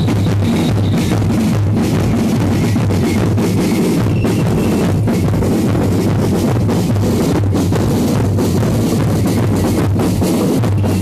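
Band music led by a drum kit, with bass drum and snare keeping a steady beat, loud and dense throughout.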